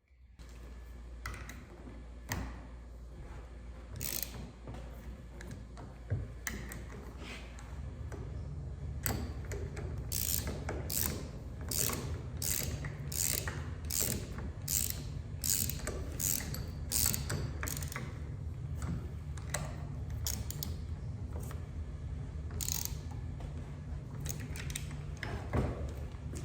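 Ratchet wrench clicking in repeated strokes, about two a second through the middle and a few more near the end, as the ram bolts of a Tecre button machine are tightened to stop the upper die hanging too low.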